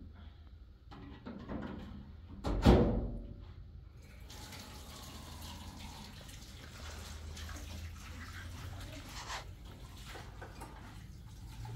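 A single loud clunk nearly three seconds in, then a kitchen tap running steadily into a sink from about four seconds on.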